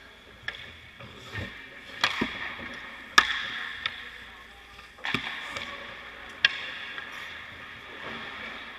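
Sharp knocks of hockey sticks and pucks on ice, six or so with an echo, the loudest about three seconds in, over the steady scrape of skate blades on the ice.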